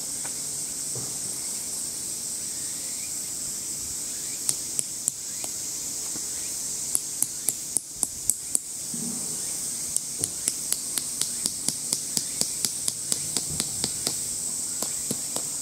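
Tent peg being struck with a stone in place of a hammer and driven into hard ground: sharp clicking strikes, a few at first, then after a pause a steady run of about four a second through the second half. A steady high drone of insects runs underneath.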